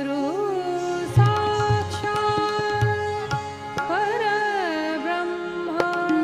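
Recorded Indian classical devotional music: a melody gliding between held notes over a steady drone, with deep tabla strokes a second or so in.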